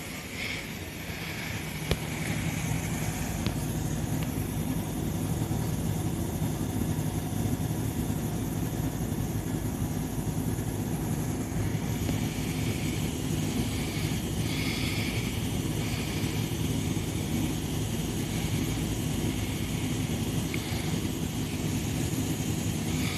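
Steady low electric hum of a Tobu 350 series train, rising about two seconds in and then holding, with a few faint high chirps over it.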